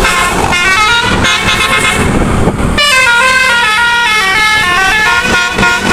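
Bus-mounted nine-trumpet musical air horn (Indonesian 'telolet' horn) playing a quick tune of stepped notes, with a short break about two and a half seconds in before the tune resumes.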